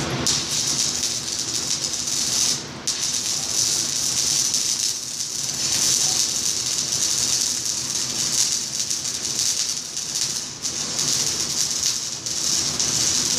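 Stick (shielded metal arc) welding: the arc crackles and sizzles steadily as the electrode burns along the joint, breaking off for a moment about two and a half seconds in and then restriking.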